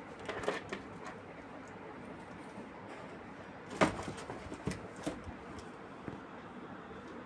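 Cat and kitten pawing and scrabbling at a cardboard box during play: scattered soft knocks and scratches on the cardboard, the loudest knock about four seconds in.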